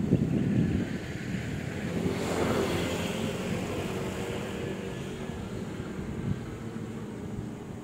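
A motor vehicle's engine running steadily as a low rumble, with a louder rushing swell about two seconds in that fades away.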